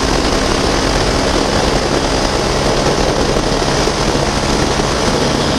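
Honda CB 250F Twister's single-cylinder engine running steadily at high revs at about 120 km/h, under heavy wind rush on the microphone.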